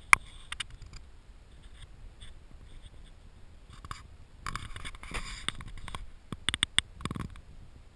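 Sharp clicks and knocks with a burst of scraping a little past the middle, from a GoPro's waterproof housing being bumped and scraped underwater, heard through the housing.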